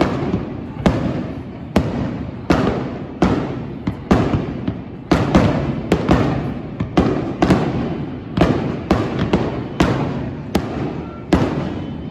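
Aerial fireworks shells bursting in quick succession, about one to two sharp bangs a second, each trailing off in a rumbling echo.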